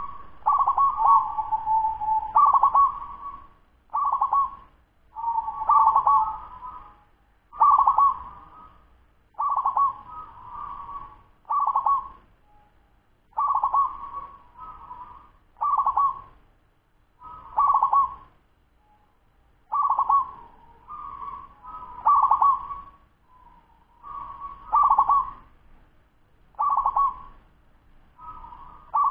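A ten-month-old local-type zebra dove (perkutut) cooing. It repeats short, quick, trilled coo phrases of about a second each, roughly one every two seconds.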